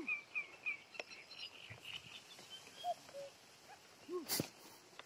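Common cuckoo calling once about three seconds in, a two-note 'cu-ckoo' falling in pitch, over high chirping of small birds. A low arched call sounds at the start and again about four seconds in, and there is a short sharp click soon after.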